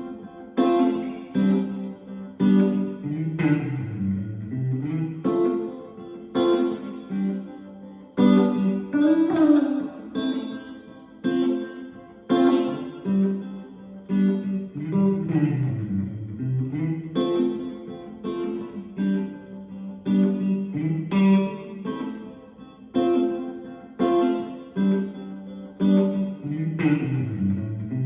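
Electric guitar through single-coil Strat-style pickups, playing a repeating chord progression: strummed chords and picked notes over a bass line that walks down and back up several times.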